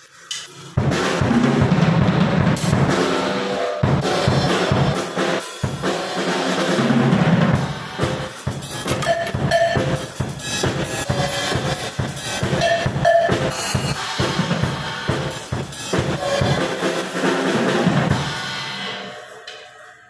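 MW Drums acoustic drum kit played in a sound check, its rack tom and floor tom fitted with new heads: bass drum, snare, toms and cymbals struck continuously, starting about a second in. The playing stops near the end and the kit rings out.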